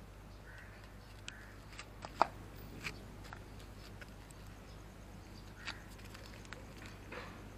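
Scattered small, sharp clicks and smacks from a cat licking and nibbling a squeezable treat held out by hand, the loudest a little over two seconds in, over a faint low steady hum.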